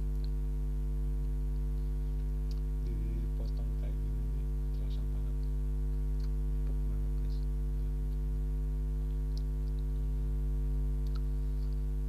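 Steady electrical mains hum throughout, with faint scattered wet mouth clicks from chewing a soft steamed bakpia bun.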